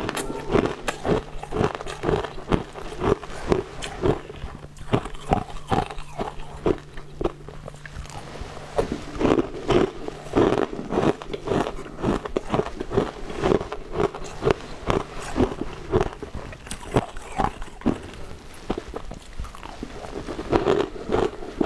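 Close-up crunching and chewing of frozen ice cubes: a rapid, irregular series of sharp bites and crunches.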